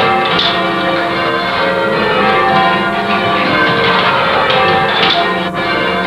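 Church tower bells being rung in change ringing: the bells strike one after another in quick succession, their ringing tones overlapping into a continuous peal.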